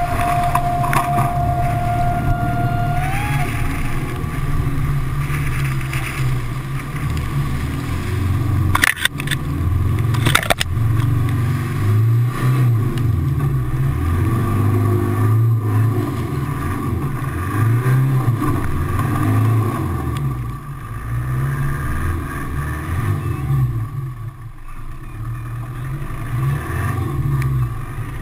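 Off-road 4x4's engine running under load and revving up and down as it drives through deep, muddy floodwater, with water sloshing against the vehicle. Two sharp knocks about nine and ten seconds in.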